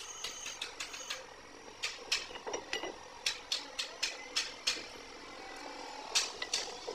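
Irregular sharp clicks and taps, two or three a second with a short lull about five seconds in, over a low steady workshop background.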